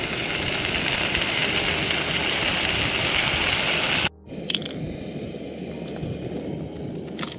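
Pork slices sizzling in a small frying pan, a steady, building hiss that cuts off suddenly about four seconds in. After that only a quieter background with a few faint clicks.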